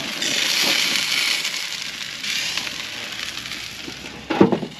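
Chicken thighs sizzling on a grill: a steady hiss, loudest for the first two seconds.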